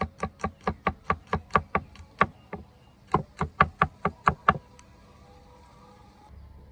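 Cleaver chopping garlic and herbs on a thick wooden chopping block: a fast, even run of knocks, about five a second, then a short pause and a second, shorter run, then quiet for the last couple of seconds.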